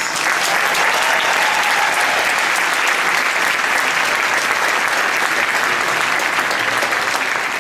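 Audience applauding, a steady dense clapping that starts at once and holds level throughout.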